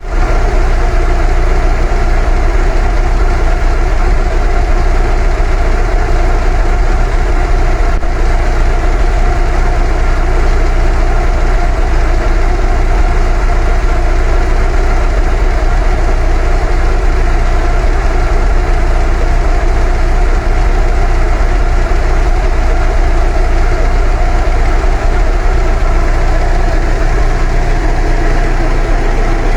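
Fiat Palio Fire's engine running steadily at idle, with the noise that the owner calls strange on starting the car.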